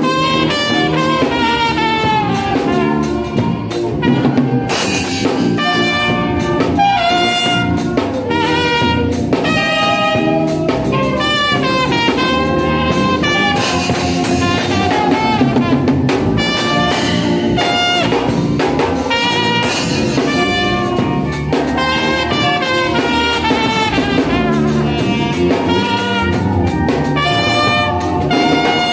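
Trumpet playing a lively melody in quick phrases of short notes, with a drum kit accompanying.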